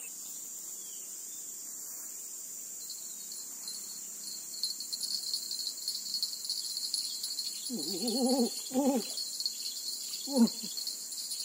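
Insects chirring steadily at a high pitch, growing louder about three seconds in. Near the end, a person's voice makes a few short sounds.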